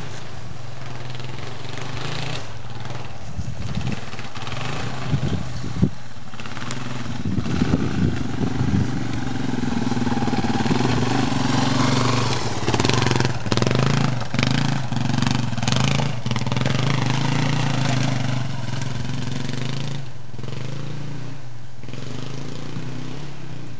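Yamaha XT225 Serow's single-cylinder four-stroke engine running at low, fairly steady revs as the trail bike picks its way slowly over rough forest ground. It grows louder as the bike passes close, about halfway through, then eases off, with a few sharp knocks in the first few seconds.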